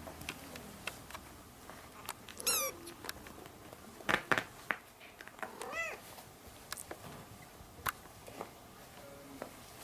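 Orange-and-white kitten mewing twice, high and thin, the kitten's call for its mother: one mew about two and a half seconds in and a second, rising-and-falling one near six seconds. Short sharp clicks and taps are scattered between them, loudest in a quick cluster about four seconds in.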